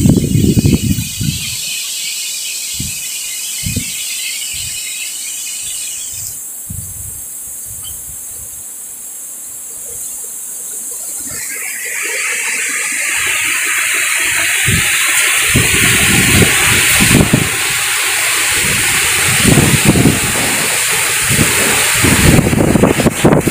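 Strong wind gusting: a whooshing hiss that builds from about halfway through, with gusts buffeting the microphone in many low thumps.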